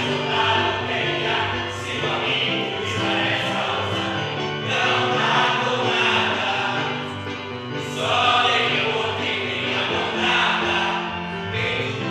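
A group of voices singing a song together in chorus, with held notes throughout.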